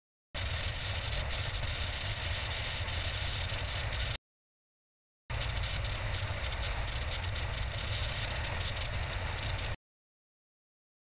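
Steady road and wind noise of a car driving at motorway speed, a deep rumble under a broad hiss. It cuts off abruptly into dead silence twice, for about a second each time.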